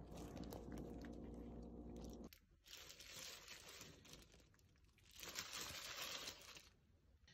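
Faint crinkling and rustling of plastic kitchen gloves as hands toss napa cabbage and chives in kimchi seasoning, in two stretches. Before that, a steady low hum with a few light clicks breaks off sharply.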